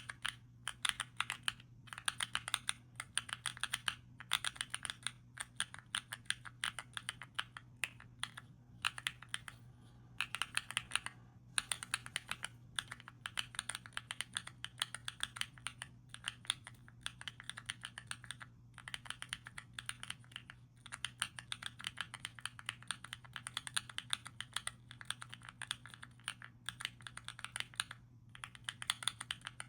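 Typing on Epomaker Zebra mechanical key switches in a KEEBS Pad: rapid runs of soft, creamy key clicks, broken by short pauses now and then.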